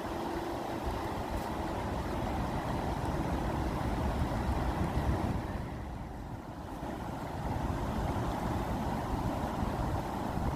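Rushing water with a steady low rumble. It eases briefly about six seconds in, then builds again.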